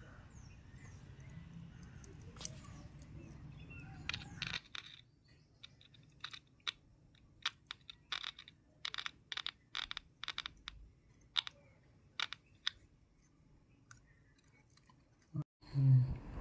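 A bare loudspeaker clicking and crackling as its wires are tapped against a mobile phone battery. A faint low hum comes first, then from about four seconds in there is a string of irregular sharp clicks.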